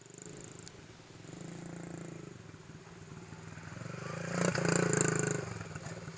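Small engine of a child's mini dirt bike running as it is ridden, getting louder as the bike comes up close around four to five seconds in, then dropping away as it moves off.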